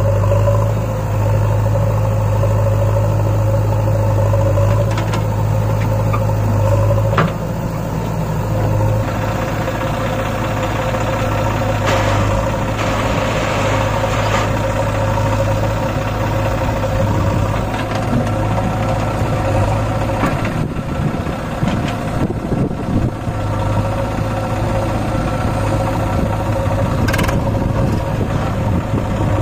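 Diesel engines of a JCB backhoe loader and a Swaraj 744 FE three-cylinder tractor idling with a steady hum. A sharp knock comes about 7 s in, where the hum changes, and another near the end, with a rougher rushing stretch around 12 to 14 seconds.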